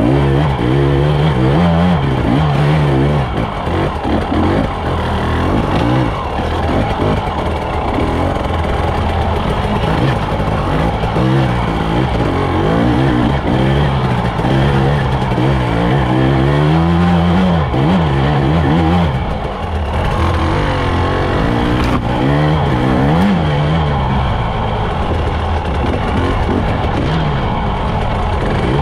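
2021 Husqvarna TE 300i's single-cylinder two-stroke engine revving up and down over and over, its pitch climbing and dropping every second or two as the dirt bike works its way up a rocky hard-enduro trail.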